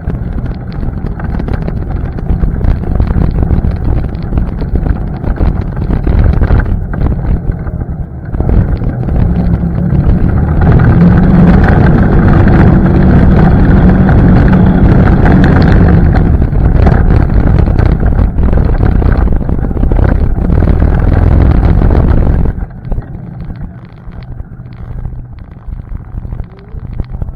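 ATV engine running under way, with wind buffeting the microphone. It gets louder about ten seconds in, then falls away sharply near the end, as if the throttle is let off.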